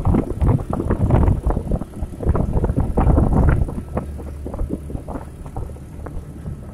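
Tossa three-wheeled cargo motorcycle running along a road, heard from its open cargo bed: engine noise mixed with wind on the microphone and choppy knocks, settling to a quieter, steadier hum about three and a half seconds in.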